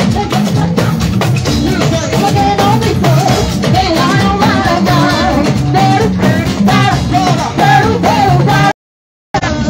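A woman singing into a microphone over live band music with a drum kit keeping a steady beat. The sound cuts out completely for about half a second near the end.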